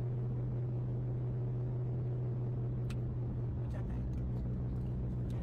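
Steady low drone of a moving car, heard from inside the cabin, with a few faint clicks about three and four seconds in.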